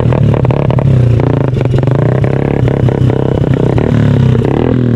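A motor vehicle's engine running loudly close by, with rattling and clattering knocks. Near the end its pitch dips and then climbs again as the revs change.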